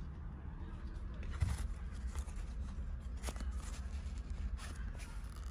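Rustling of children's nylon puffer jackets being handled on a clothes rack, with a few short scrapes and clicks over a low rumble.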